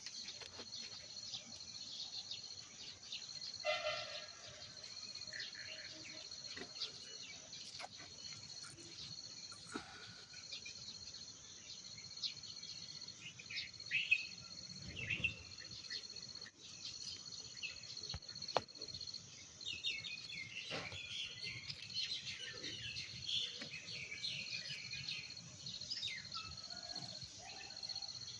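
A steady, high-pitched insect chorus, like crickets, runs throughout, with many short bird chirps scattered over it.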